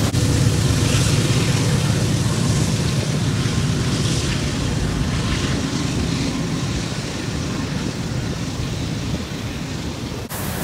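Freight train rumbling past, a steady low rumble that slowly fades, with faint recurring clatter.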